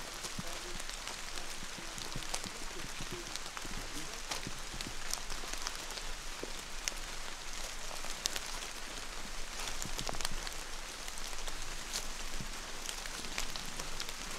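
Light rain and drips pattering on wet leaves and the forest floor: a steady soft hiss with many scattered, sharp ticks of falling drops.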